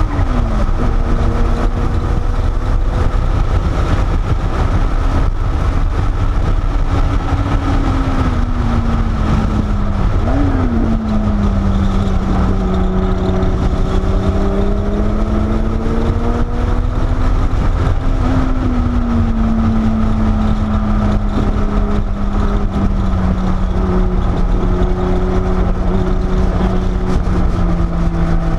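Porsche 930 Turbo's air-cooled, turbocharged flat-six heard from inside the cabin on track, over steady road and wind rumble. The engine note drifts slowly up and down and jumps sharply upward three times: just after the start, about ten seconds in and about eighteen seconds in. It sinks lowest near the end.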